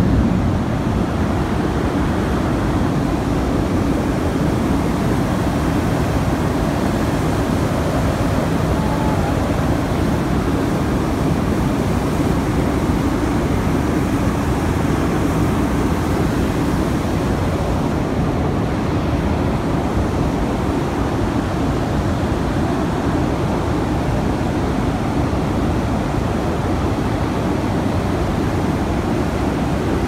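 Steady, loud roar of a blast furnace cast house during tapping, with molten iron and gas rushing out of the opened tap hole. The roar is briefly louder at the very start.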